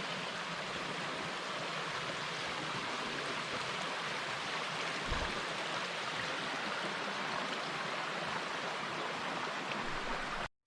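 Steady rush of water from a mountain stream and waterfall, with one soft thump about halfway. The sound cuts out completely for a moment near the end.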